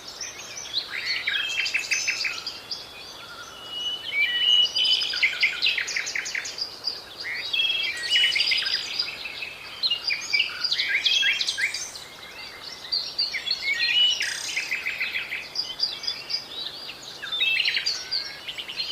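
Small songbirds singing and calling, several at once, in a continuous mix of quick chirps, rapid trills and short whistles.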